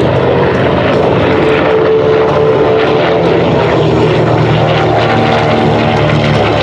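Twin Wright R-2600 radial engines of a B-25J Mitchell bomber running in flight, a steady propeller-engine drone.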